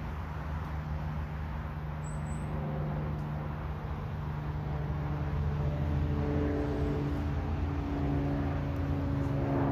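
Steady low rumble and hum of distant road traffic.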